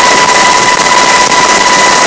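Coast Guard MH-60 Jayhawk helicopter in cruise flight, heard from inside the cabin: a loud, steady rushing noise with a steady high whine running through it.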